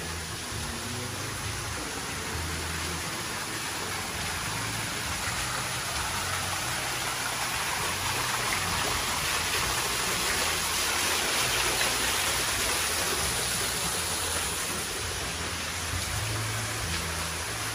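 Water splashing from a small stone courtyard fountain: a steady rushing hiss that grows louder toward the middle and eases off again.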